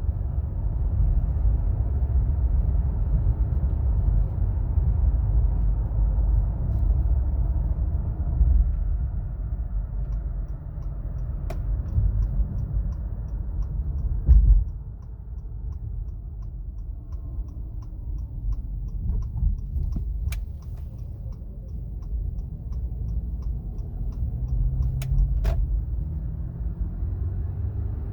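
Road and drivetrain noise inside the cabin of a 2017 Acura MDX on the move: a steady low rumble that eases about halfway through, with a faint whine that changes pitch with speed. The owner suspects the whine comes from the front passenger side.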